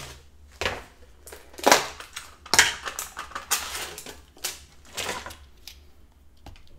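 Sharp, irregular clicks and knocks, about six spread over several seconds and the loudest two near the middle, from dip containers and a glass dip bowl being handled and set down on a table.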